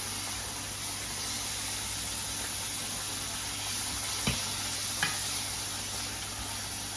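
Beef mince sizzling steadily in a frying pan on high heat, with two light knocks about a second apart near the middle.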